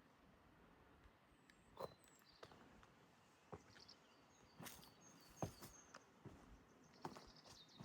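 Faint footsteps on a stone path, a few irregular steps about a second apart, with small birds chirping faintly and high-pitched.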